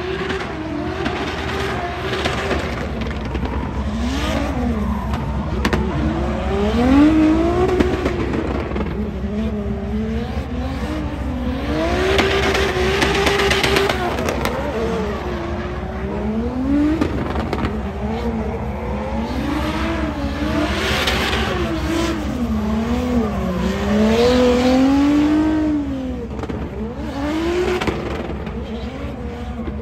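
Drift car engines revving hard, the pitch climbing and falling again and again as the cars slide through the corners, with tyre squeal swelling at times.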